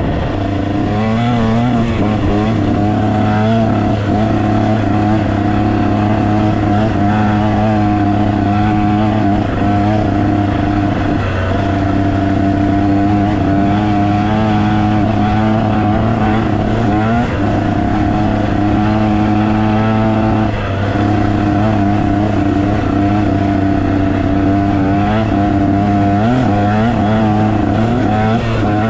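Dirt bike engine running under throttle, loud and continuous, its revs rising and falling every second or two.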